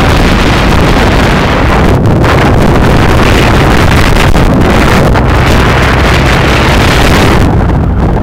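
Heavy wind buffeting the microphone of a moving motorbike, with the engine running steadily underneath.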